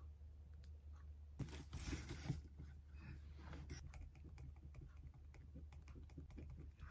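Faint, irregular light clicks and taps, like typing, with a short rustle about a second and a half in.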